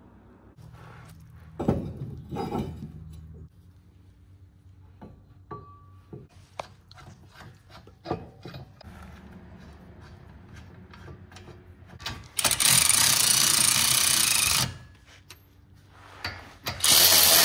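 Light clicks and rubbing as the brake caliper is handled into place on the hub, then a cordless power tool runs twice, about two seconds each time, loud and steady, driving in the caliper mounting bolts.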